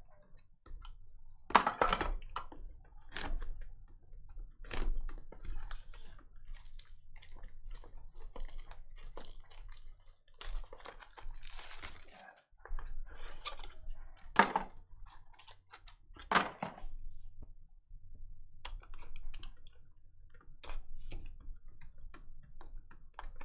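Trading cards and clear plastic card cases handled on a tabletop: scattered clicks, taps and plastic knocks, with about two seconds of rustling around ten seconds in.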